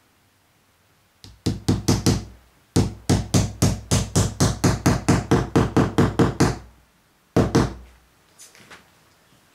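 Hollow knocking on a wall-mounted ledge: a few knocks, a short pause, then a fast even run of about four knocks a second lasting nearly four seconds, and one last knock near the end.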